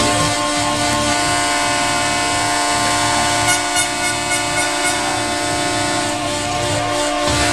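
A long, steady horn blast held without a break, one unchanging chord-like tone.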